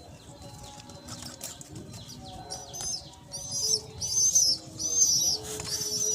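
A bird singing a run of repeated high, shrill notes, beginning about two and a half seconds in and coming about one and a half times a second, growing louder.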